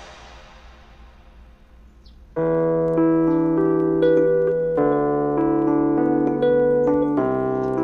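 Background music: the tail of an electronic track fades out, then piano music with held chords starts about two and a half seconds in.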